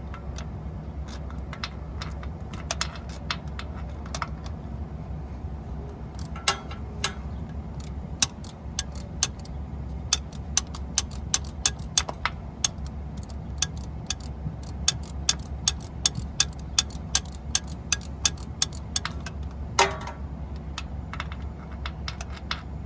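Hand ratchet wrench clicking in sharp, fairly regular ticks, about two to three a second through the middle, as a long-threaded starter mounting bolt is worked loose. Near the end there is a single louder knock, and a steady low hum underlies it all.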